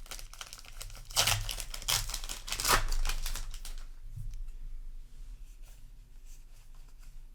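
A trading-card booster pack's wrapper being torn open and crinkled: three loud tearing, crinkling bursts in the first three seconds, then softer crackles and clicks as the wrapper and cards are handled.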